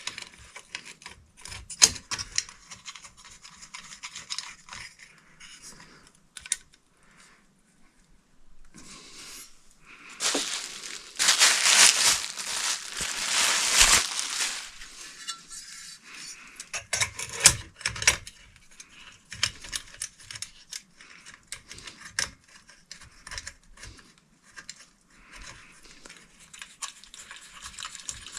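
Hands working on ceiling fan parts: scattered small clicks and clinks, with about four seconds of loud rustling or crinkling around the middle.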